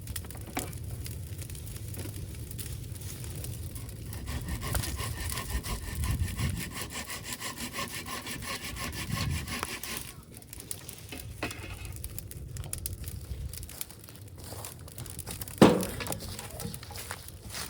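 Hand saw cutting through wood in quick back-and-forth strokes, stopping abruptly about ten seconds in. A single loud knock comes near the end.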